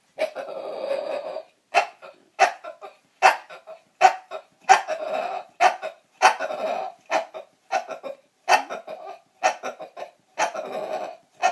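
Bulldog making a string of "dinosaur noises": short, sharp grunting calls about once or twice a second, with a few longer drawn-out calls of about a second each mixed in.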